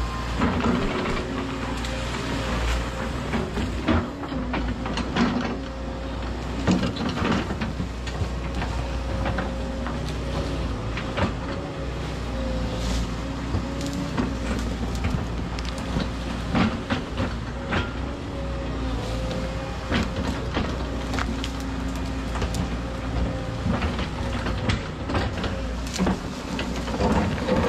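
Volvo 140 excavator's diesel engine running steadily under work, with a constant whine, and frequent knocks, clanks and clatter as the machine works.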